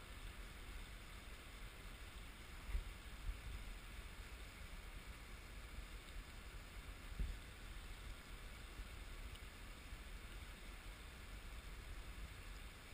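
Wind buffeting the microphone in low gusts over a faint steady rushing hiss, with two brief low thumps about three and seven seconds in.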